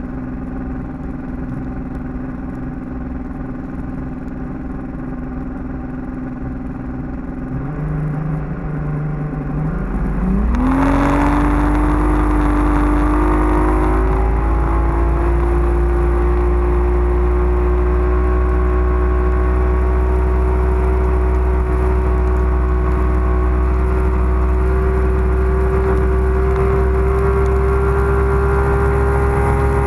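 Bass boat's outboard motor running at low speed, then throttled up about ten seconds in. Its pitch climbs quickly, then settles into a steady, louder high-speed run, with rushing wind and water.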